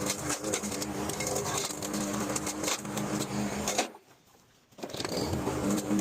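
Walk-behind lawnmower engine running while the blade chews through tree limbs, with a rapid clatter of wood pieces striking the deck. The sound cuts out for about a second near four seconds in, then returns.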